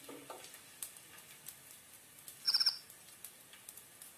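Crushed garlic frying quietly in oil, with a faint sizzle and a few small pops. About two and a half seconds in comes a brief, high chirping call of a few quick notes.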